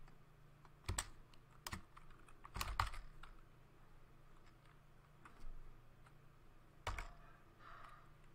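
Unhurried typing on a computer keyboard: single keystrokes and short runs of a few keys, spaced a second or more apart.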